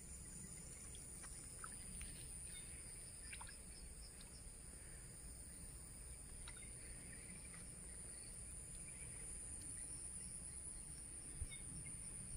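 Faint outdoor ambience: a steady high-pitched insect drone, with scattered faint bird chirps and a single soft knock near the end.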